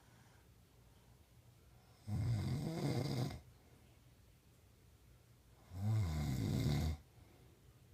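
A man snoring in his sleep: two snores, each a little over a second long and about four seconds apart, with quiet between them.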